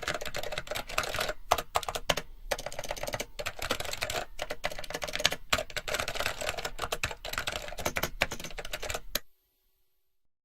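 Typing on a computer keyboard: a dense, continuous stream of key clicks with a few brief pauses, stopping abruptly about nine seconds in.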